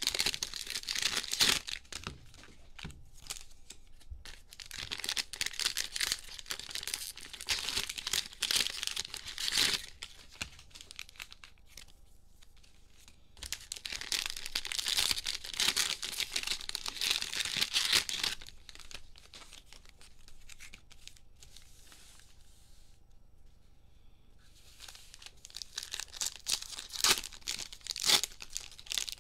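Cellophane wrappers of trading-card cello packs being torn open and crinkled by hand, in four spells with quieter pauses between.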